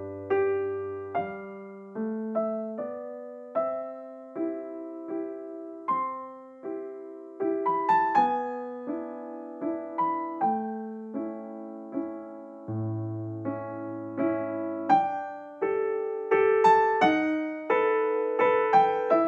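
Background piano music: a slow, gentle melody of single notes and chords, each struck and left to fade, over a few held low bass notes.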